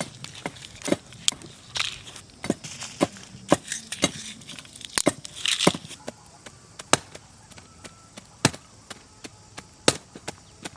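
Chopping: a blade striking again and again as sharp, separate knocks, about one or two a second at an uneven pace.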